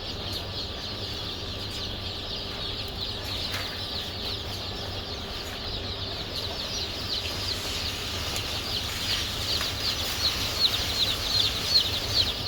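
A flock of chicks peeping: a dense chatter of short, high, falling cheeps that grows louder and busier in the second half, over a low steady hum.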